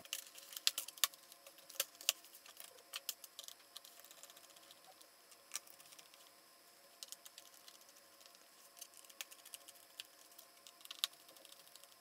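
Faint, scattered clicks and light taps as a laptop's plastic bottom access cover is pressed into place and its screws are driven with a small screwdriver. The clicks come thickest in the first few seconds, thin out, then pick up again near the end.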